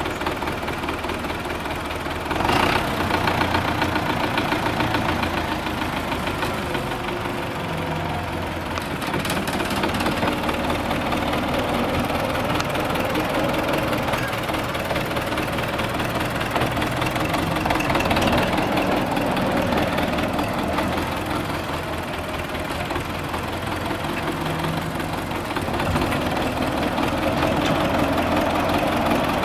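Wheeled tractor's engine running steadily while its front loader works, spreading earth from the bucket; the engine gets louder about two seconds in, and again about two-thirds of the way through and near the end.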